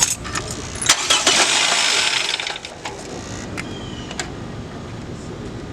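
A few clicks, then the Toyota Camry's engine cranks and starts about a second in, with a loud rush of noise that settles after a second and a half into a steady idle.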